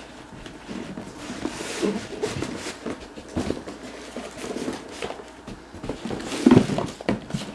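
A cardboard box being handled and opened by hand: irregular scraping and rustling with small taps, and a louder knock about six and a half seconds in.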